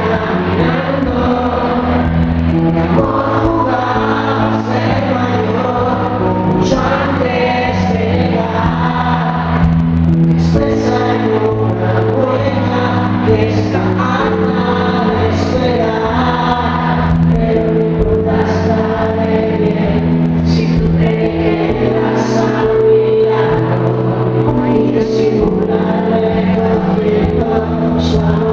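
A man singing a Spanish-language song while accompanying himself on a stage keyboard, playing held chords under the voice.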